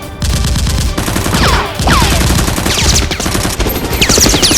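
Sustained rapid automatic gunfire, a shoot-out sound effect, with several short falling whistles over it.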